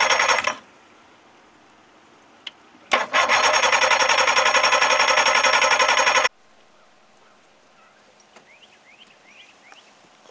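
Evinrude 40 two-stroke outboard motor running in fast, even pulses. It drops out about half a second in, starts again near three seconds, and cuts off abruptly a little past six seconds. Faint bird chirps follow.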